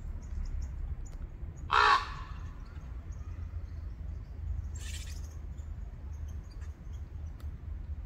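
A corvid gives one loud, harsh, caw-like call about two seconds in. A fainter, higher harsh call follows about three seconds later. Small birds chip faintly in the background.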